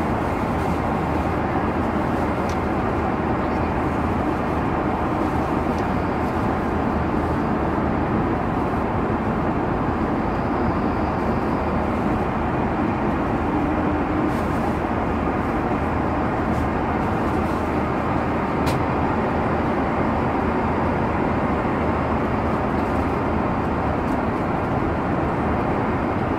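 Steady roar of an Airbus A330-300's cabin noise, engine and airflow sound heard inside the business class cabin, even in level throughout, with a couple of faint ticks.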